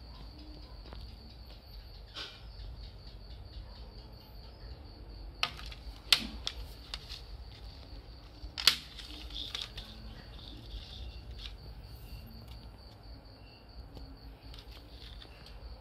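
Plastic CD jewel case clicking and knocking as it is handled, set down and opened, with sharp clicks about five and a half, six and nine seconds in. A steady high pulsing trill runs underneath.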